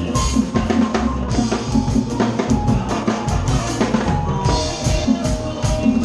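Live band playing, with the drum kit loudest: kick drum, snare and cymbals keeping a steady beat under held notes from another instrument. It is heard from the drummer's position in the stage monitor mix.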